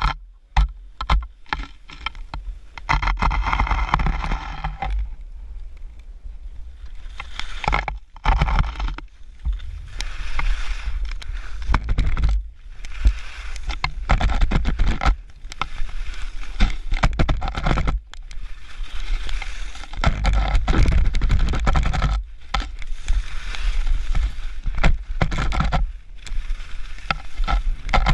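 Skis scraping and hissing over packed snow on a downhill run, with wind rumbling on the camera microphone. The noise surges and drops again and again, with brief lulls.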